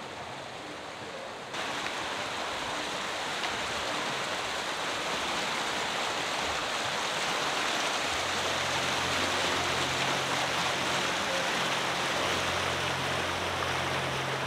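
A rushing snowmelt mountain stream gives a loud, steady hiss that jumps suddenly louder about a second and a half in. Soft, sustained background music notes come in underneath about halfway through.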